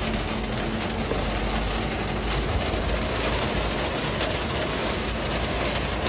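Heavy rain pouring down on a small three-wheeled camper, a steady dense patter with no let-up.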